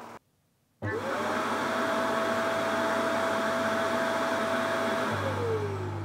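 Ecovacs Deebot X1 Omni docking station's auto-empty motor sucking the dust out of the robot's bin: a loud, steady rushing noise whose whine climbs as it spins up about a second in, holds, then winds down with a falling whine about five seconds in, leaving a lower hum.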